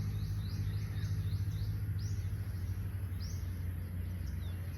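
Small birds chirping: short high chirps, a quick run of them in the first second and a half, then single ones about every second, over a steady low hum.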